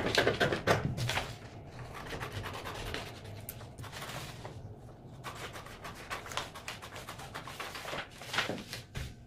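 Pattern paper rubbing and scratching against a work surface, with a pencil or tracing tool stroking across it in irregular scrapes and a few sharper rustles.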